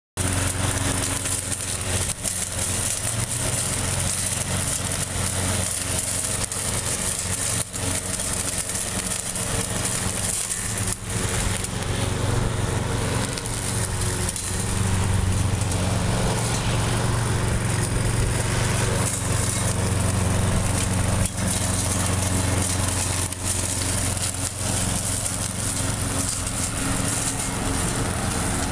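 Craftsman all-wheel-drive push mower with a Briggs & Stratton QPT engine running steadily while it mows grass and dry leaves.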